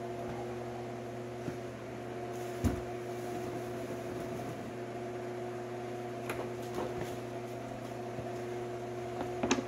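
A steady background hum with several fixed pitches, with one dull knock about two and a half seconds in and a few light clicks later as door trim parts are handled.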